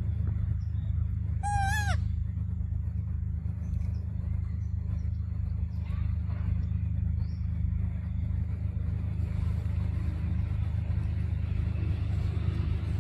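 Steady low rumble, with one short, high-pitched monkey call about a second and a half in, likely from a young macaque.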